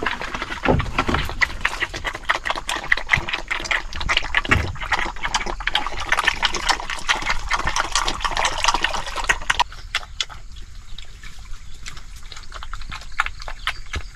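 Wet pig feed poured from a bucket into a wooden trough, splashing and sloshing, with piglets slurping and chomping at it. The pouring stops abruptly about ten seconds in, leaving quieter smacking from the feeding piglets.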